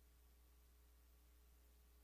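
Near silence: only a faint, steady low hum with hiss.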